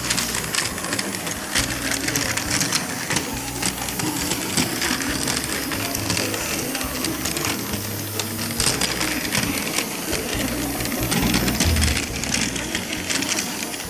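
Battery-powered Plarail toy train running on plastic track: its small motor and gearbox whir with a steady rapid clatter of wheels and gears.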